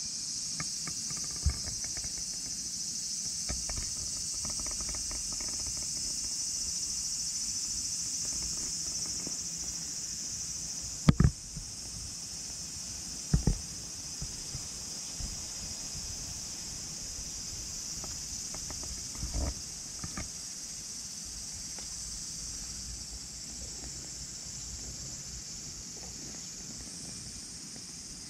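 A steady, high-pitched insect chorus. A few dull knocks and bumps against the camera cut through it, the loudest about eleven seconds in and another a couple of seconds later.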